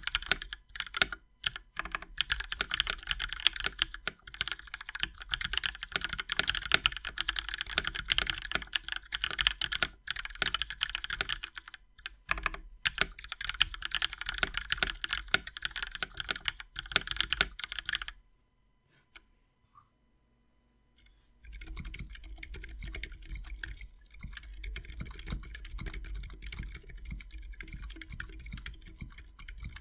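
Fast typing on a 60% carbon fiber skeleton mechanical keyboard with lubed linear switches and PBT keycaps: sharp, clacky keystrokes. About 18 seconds in the typing stops for a few seconds, then resumes noticeably quieter and softer.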